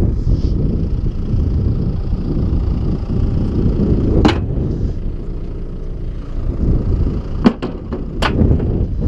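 Wind buffeting the microphone over the low running of a tractor engine, with a sharp click about four seconds in and a quick cluster of clicks near the end.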